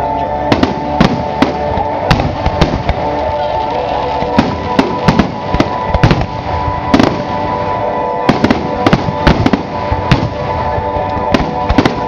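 Aerial firework shells bursting overhead, about twenty sharp bangs at irregular intervals, often two or three in quick succession, over continuous music.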